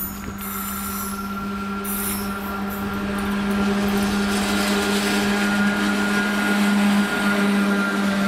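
A freight train headed by two Indian Railways electric locomotives, one a WAG-5, approaching and passing at speed. Wheel and rail noise grows louder over the first few seconds under a steady hum from the locomotives.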